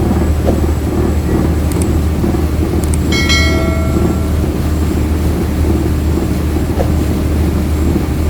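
Passenger ferry's engine running with a steady, loud low drone. About three seconds in, a brief ringing tone sounds over it.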